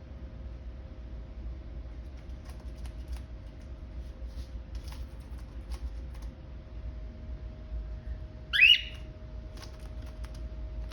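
A cockatiel gives one loud, short squawk about three-quarters of the way through, after a stretch of faint scattered clicks.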